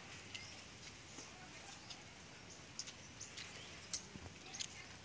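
Quiet eating by hand: chewing and lip-smacking with scattered small, irregular mouth clicks, the sharpest about four seconds in.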